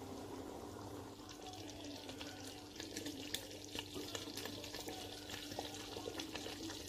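Pot of bean stew in red palm oil simmering on the cooktop, bubbles popping and oil crackling, with the pops coming thicker from about two and a half seconds in. A steady low hum lies underneath.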